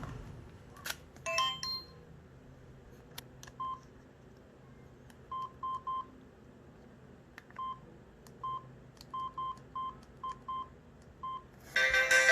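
Samsung SGH-T729 Blast mobile phone keypad: soft key clicks and about a dozen short, identical key-press beeps at an uneven pace, as with someone stepping through the phone's menus. Near the end a loud ringtone starts playing.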